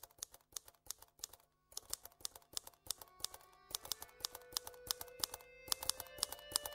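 Soft background music opening with rapid, irregular clicks like typewriter keys. Held tones come in about three to four seconds in and the music slowly grows louder.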